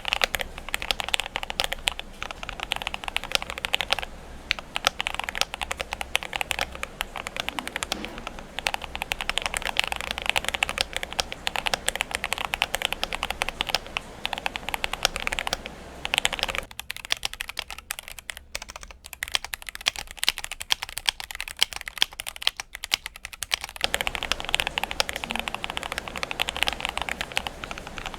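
Fast, continuous typing on a GMMK Pro mechanical keyboard with lubed Akko CS Starfish switches, tuned stabilizers and foam, polyfill and tape dampening mods, a quick run of key clicks. The keystrokes thin out and soften for several seconds past the middle, then pick up again.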